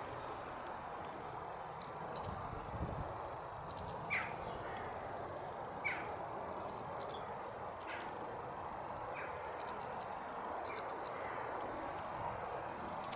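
Short harsh bird calls, four or so spaced a second or two apart with the loudest about four seconds in, and faint high chips in between, over a steady background hiss.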